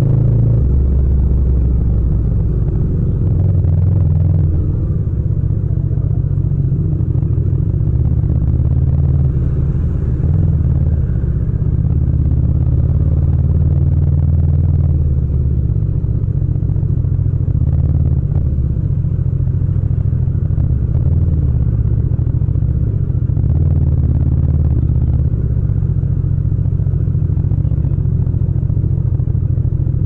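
Yamaha MT-07's 689 cc parallel-twin engine running at low revs, its low exhaust note rising and falling in pitch with small throttle changes.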